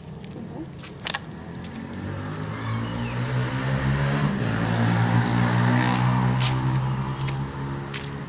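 A motor vehicle's engine passing close by, its steady hum swelling to its loudest about halfway through and then fading. A few sharp clicks sound over it.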